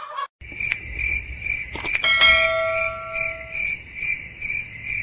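Cricket-chirp sound effect, a steady high chirp repeating about twice a second. Over it come a couple of sharp mouse-click sounds and then a bell ding about two seconds in, ringing out over a second or so, the kind heard with a Subscribe-button and notification-bell animation.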